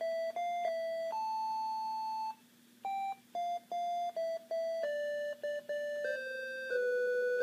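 Casio SA-46 mini keyboard playing a simple melody one note at a time on a sustained, beep-like tone; each note holds at a steady pitch and stops abruptly when the key is released, with a short pause a little over two seconds in.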